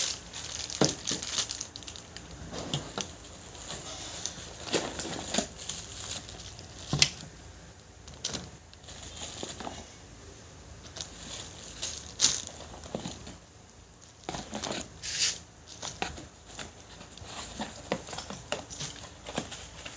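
A slingshot kit being unpacked from its box: rustling packaging, with scattered clicks and knocks as the parts are handled and set down.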